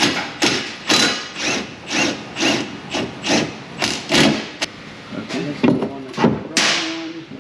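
Ratchet wrench being worked on a bolt, a rasping ratchet stroke about twice a second. The strokes turn irregular near the end, with one longer burst.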